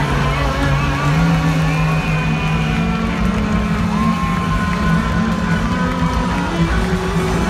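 A funk-rock band playing live and loud through a large PA. Held bass notes change pitch about a second in, with long held high notes over them.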